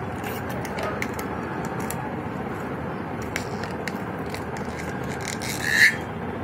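Faint rubbery clicks and creaks from a small scrap of deflated balloon being worked at the lips and twisted into a tiny knotted bubble, with a brief louder squeak near the end, over steady background noise.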